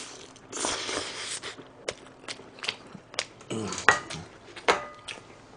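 Chewing a mouthful of noodles, then chopsticks and a ceramic plate clicking and clinking on the table, several sharp taps with a couple of short ringing clinks as the plate is set down.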